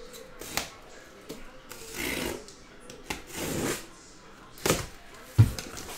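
Cardboard boxes being handled and shifted on a table: rubbing and sliding swishes, light clicks and knocks, and a heavier thump near the end.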